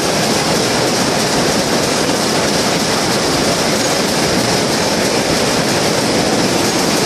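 Shuttleless towel looms running at speed: a loud, steady, rapid mechanical clatter with no letup.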